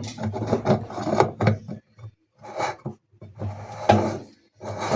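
Special wrench turning the reverse-threaded nut on a GE washing machine's spin basket. Metal scrapes and knocks in several rough bursts with short pauses between.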